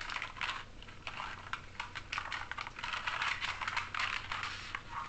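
Dense, rapid clicking and clattering of small hard plastic parts, coming in uneven clusters.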